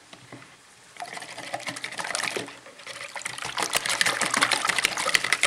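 Wire whisk beating raw goose and hen eggs in a ceramic bowl: a rapid, wet clatter of the whisk against the bowl that starts about a second in, pauses briefly, then gets faster and louder.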